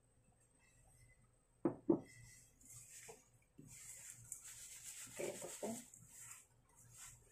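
A stainless steel mixing bowl knocking twice on the countertop about two seconds in. Then tofu cubes are tossed and rubbed in a coating powder inside the bowl, with soft rustling and a few dull clunks.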